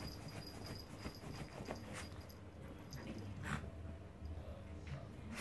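A miniature poodle and another dog playing on a bed: quiet dog noises and scuffling on the bedding, with a few soft clicks.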